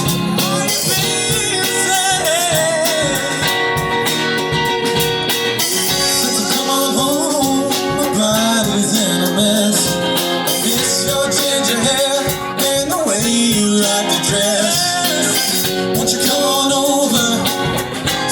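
Music: a song with a singing voice over guitar, playing steadily throughout.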